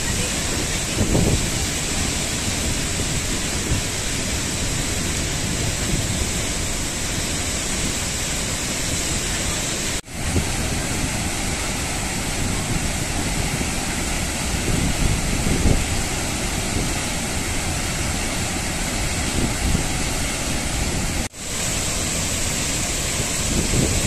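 Athirappalli Falls' water rushing steadily over rock, a continuous even roar. The sound cuts out for an instant twice, about ten and twenty-one seconds in.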